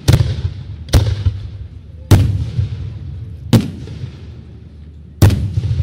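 Aerial firework shells bursting overhead: five sharp bangs at irregular intervals of about one to one and a half seconds, each followed by a low rolling rumble.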